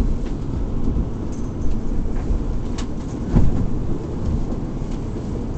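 Steady low rumble of an R46 subway car running through the tunnel, heard from inside the car, with occasional knocks and rattles and a louder thump about three and a half seconds in.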